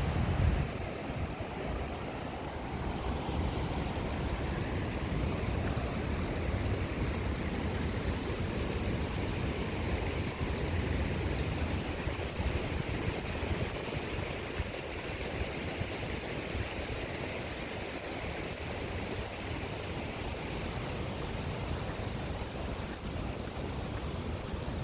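Harajiri Falls' water rushing in a steady, even roar, with a louder low rumble at the very start.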